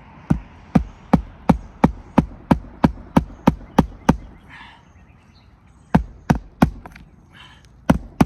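Hammer driving roofing nails into brittle asphalt shingles. It strikes about a dozen times at roughly three blows a second, pauses, then gives a few more blows, three and then two.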